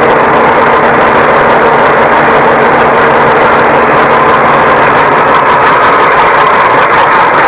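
New Holland 3630 tractor's diesel engine running steadily under heavy load as it pulls an overloaded trailer, the load heavy enough to lift the tractor's front wheels off the ground.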